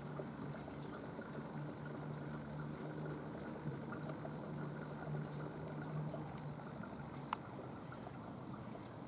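Steady background noise that sounds like trickling, pouring water, with a low steady hum that fades about six seconds in and a single sharp click about seven seconds in.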